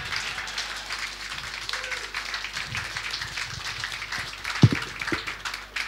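Audience applauding, a dense patter of many hands clapping, with one low thump a little over two thirds of the way through.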